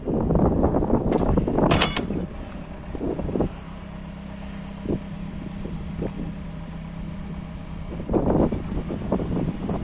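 JCB 1CX backhoe loader's diesel engine running under load, loud and rough, with a brief high squeal near two seconds. It settles to a steady lower hum, then grows loud again about eight seconds in.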